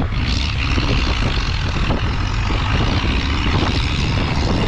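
Tractor engine working hard under load in a tractor pull, a steady loud rumble with a broad roar that swells up about a fifth of a second in and holds.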